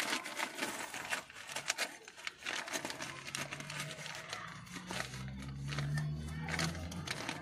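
Plastic packet crinkling and rustling in short bursts as hands pick through it for a crimp terminal. A low steady hum joins in about five seconds in.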